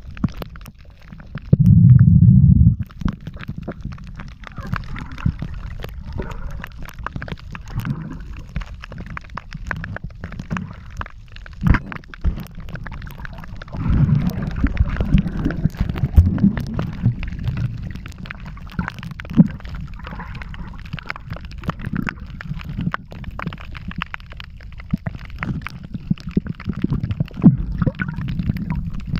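Muffled water sloshing and gurgling around a camera in the water, with a steady low rumble and scattered clicks. There is a loud low burst about two seconds in.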